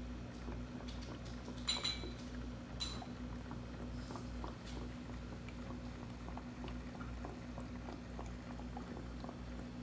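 Aquarium water bubbling over a steady low hum from the tank's pump or filter, with many small scattered ticks. Two sharper clicks come about two and three seconds in.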